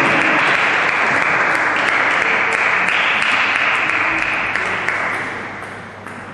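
Spectators applauding, a dense clapping that dies away about five seconds in.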